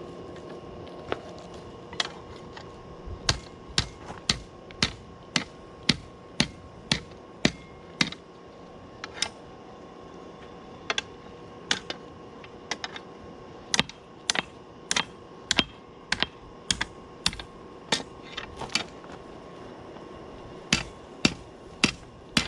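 Hammer blows on a 5160 coil spring over an anvil as it is straightened: sharp, uneven strikes about one or two a second, with a few short pauses, over a steady hum.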